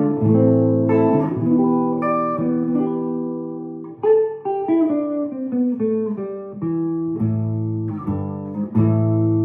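1960s Höfner Verithin thin hollow-body electric guitar being played: chords struck and left to ring, with a run of descending single notes about halfway through.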